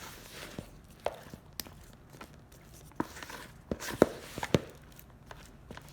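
Sticky naan dough being mixed by hand in a bowl: irregular soft slaps, squelches and knocks against the bowl, loudest twice around four seconds in.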